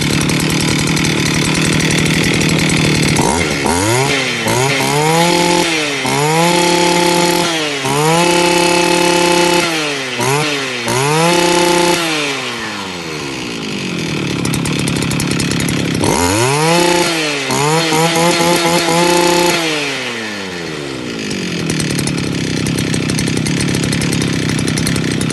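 Stihl FS 230 brush cutter's two-stroke engine running: it idles, is revved up and down several times from a few seconds in, drops back to idle, is revved again in a second run of blips past the middle, and settles back to idle near the end.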